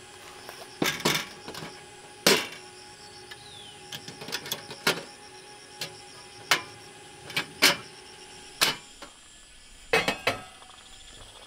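Sharp knocks and metallic clatters, about a dozen at uneven intervals, as a portable gas camping stove is handled: its case lid opened and a steel pot set down on the burner grate.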